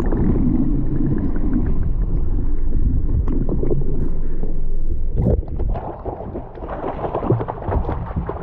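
Muffled underwater rumbling and gurgling heard through a submerged camera as a hooked yellowtail is reeled up. A sharp knock about five seconds in, then the sound opens up into the fish splashing at the surface beside the boat's hull.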